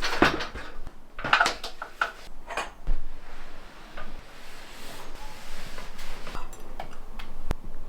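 Household objects being handled: several clinks and knocks in the first three seconds, then quieter handling with a few light ticks.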